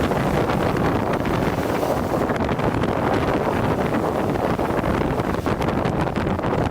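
Strong wind buffeting the microphone over lake waves crashing against a breakwater: a loud, unbroken rush.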